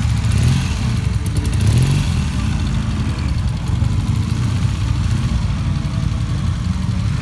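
Motorcycle engine running steadily at idle, its pitch lifting slightly for a moment between about one and two seconds in.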